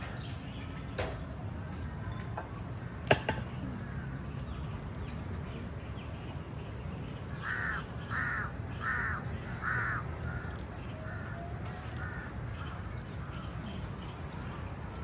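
A crow cawing, four loud caws in a row about halfway through, then several fainter ones. A single sharp click about three seconds in, over a steady low background rumble.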